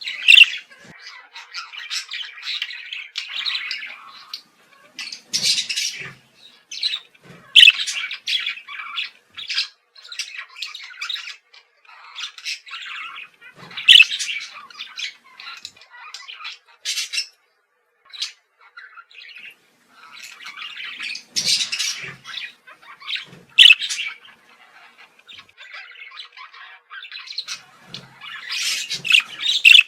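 Budgerigars chattering and warbling, a busy run of quick chirps broken by sharp, loud squawks, with a brief pause a little past the middle.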